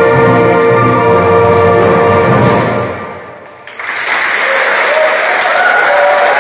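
Youth brass and reed band holding the closing chord of a piece, which dies away about three seconds in. After a brief hush, audience applause breaks out.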